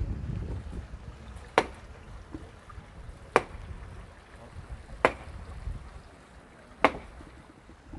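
Four sharp knocks, evenly spaced about every 1.7 seconds, over a low rumble of wind on the microphone.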